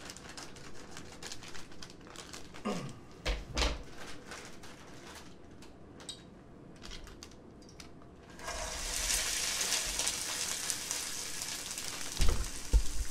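Kitchen scissors snipping and crinkling a plastic bag of frozen vegetables, with scattered clicks and rustles. About eight seconds in, the frozen peas and carrots hit hot olive oil in a pan and sizzle steadily. Near the end, a few loud thumps as the camera is knocked.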